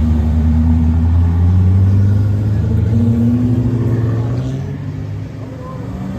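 Hypercar engine running at low revs close by, a low steady note that swells slightly and then fades away over the last second and a half.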